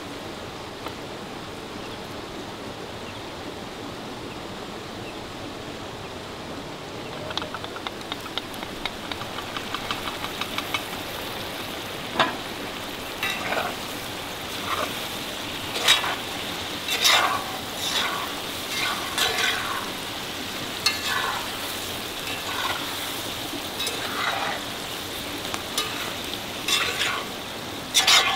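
Food sizzling as it fries in a pot, a steady hiss at first. About a quarter of the way in comes a quick run of light taps, then a spoon scrapes and stirs the pot in irregular strokes.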